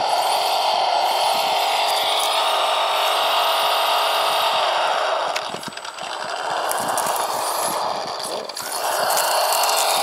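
A 1/18 scale RC rock crawler's electric motor and drivetrain running steadily under throttle as it crawls. It eases off twice, about halfway through and again later, with the pitch sliding as it picks back up.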